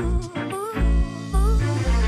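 Background music: an instrumental soul-funk groove with guitar, a deep bass line and a steady beat.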